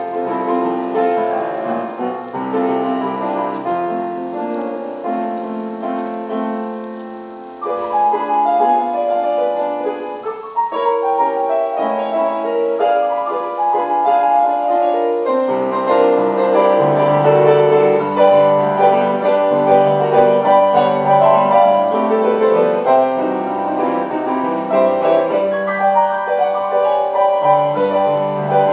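Solo grand piano playing a slow, hymn-like piece in a reverberant sanctuary. It grows fuller and a little louder about halfway through, as low bass notes come in.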